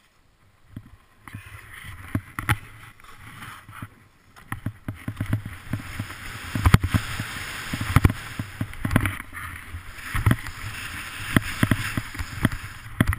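Snowboard sliding and carving down a powder chute: a steady hissing rush of the board over snow, broken by frequent sharp knocks and low thumps as it hits bumps. It starts about a second in, after near silence.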